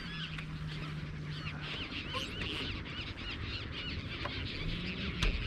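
A flock of birds calling: many short, overlapping high calls. A low steady hum runs for the first couple of seconds, and a couple of sharp knocks come near the end.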